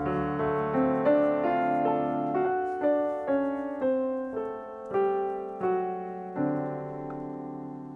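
Background piano music: a slow melody of single struck notes, each fading before the next.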